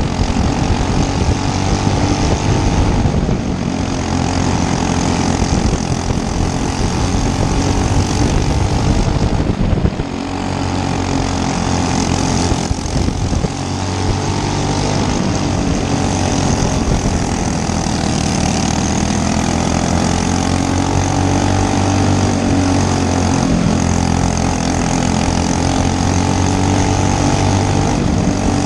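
Racing kart engine running hard on a dirt track, its pitch rising and falling as the revs change, with brief drops about ten seconds in and again a few seconds later.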